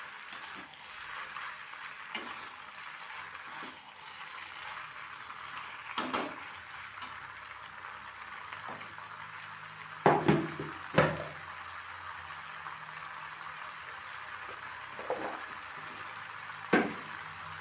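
Food sizzling steadily in a hot pan as it is stirred, with a spoon or spatula knocking against the pan a few times, loudest in a cluster about ten seconds in.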